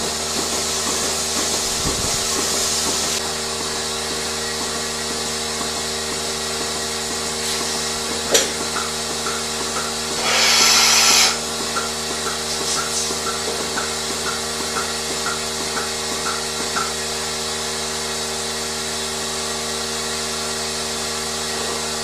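Steady hum of farm machinery with several held tones. There is a sharp click about eight seconds in and a second-long burst of hissing air about ten seconds in, followed by a run of faint short squeaks.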